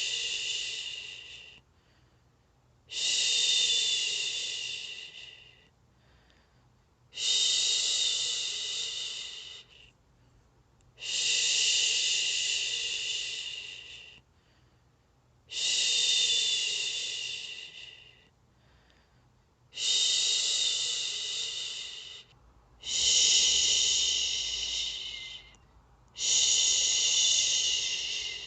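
A person shushing 'shhh' over and over, soothing a baby to sleep. Each shush is a long hiss lasting two to three seconds and fading off at the end, with a short pause before the next, about one every four seconds.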